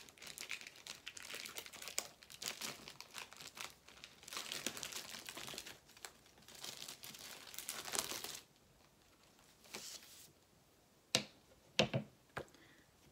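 Plastic packaging crinkling and tearing in irregular bursts as printed comic books are unwrapped, for about eight seconds; then quieter, with a few sharp taps near the end.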